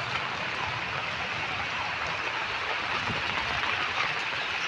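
Steady hiss of rain falling on floodwater covering a street, with a faint low rumble underneath.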